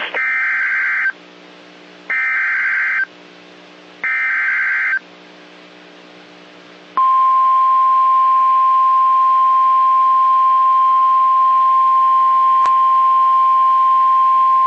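NOAA Weather Radio Emergency Alert System (EAS) alert: three short bursts of SAME header data tones, each about a second long and two seconds apart. About seven seconds in, the steady single-pitch 1050 Hz warning alarm tone begins; it marks a weather warning about to be read, here a severe thunderstorm warning.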